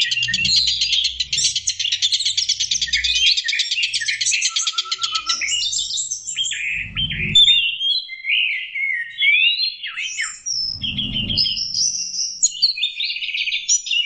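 Songbird song: a dense, very rapid high trill for about the first five seconds, then varied whistled phrases with sliding notes. Two brief low thuds come partway through.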